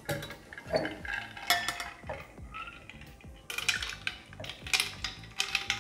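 Ice clinking and rattling against a glass mixing glass and its metal Hawthorne strainer as a stirred cocktail is strained off into a stemmed cocktail glass. The clinks come in several short clusters.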